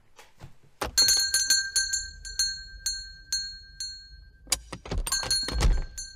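A small bell struck many times in quick succession, starting about a second in, its clear ringing tones holding between strikes and fading away. A second flurry of strikes comes near the end, with a couple of dull low thumps.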